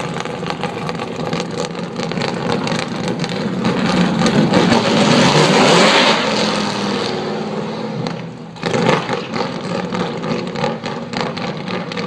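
V8-swapped Nissan Silvia S14.5 race car running hard on track at a distance, its engine note swelling to its loudest around six seconds in, dropping away briefly near eight seconds, then rising sharply again.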